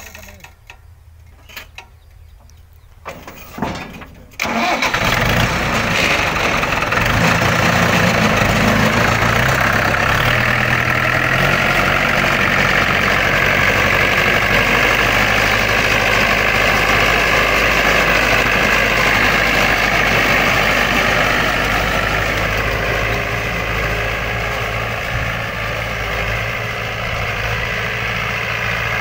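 Tractor's diesel engine starts suddenly about four seconds in, after a few faint clicks, and then runs steadily.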